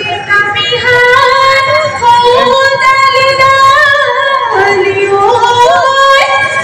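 Women singing a Bihu song, with long high held notes and quick ornamental turns, over faint rhythmic percussion ticks.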